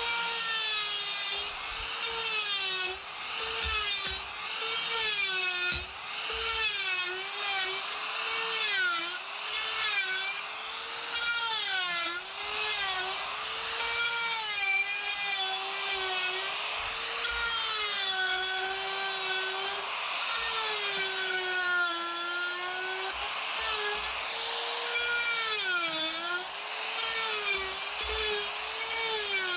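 Electric die grinder with a 1/4-inch-shaft coarse flame burr cutting into wood, rounding over carved letters. The motor's high whine runs without a break, its pitch dipping and recovering again and again as the burr bites in and is eased off.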